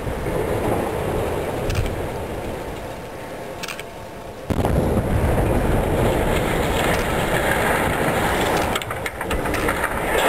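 Explosive demolition of steelworks open-hearth furnace chimneys: a low rumble dies away over the first few seconds. About four and a half seconds in, a sudden, much louder rumble begins and carries on as the next chimney comes down.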